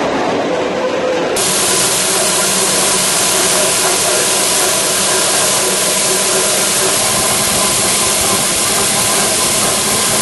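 A train's wagons rolling past on the track, then, after about a second and a half, a sharp change to a loud steady hiss inside a running vintage electric locomotive, with a faint steady hum from the traction motor and drive beneath it.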